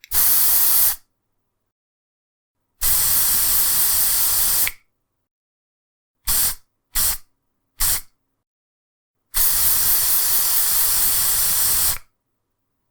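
Aerosol deodorant can spraying in separate hissing bursts: a short spray, a spray of about two seconds, three quick short puffs, then a longer spray of nearly three seconds, with silence between.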